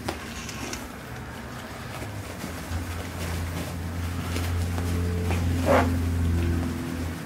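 Boxer puppies crowding to nurse, with short squeaks and one louder squeal about six seconds in, over a steady low hum.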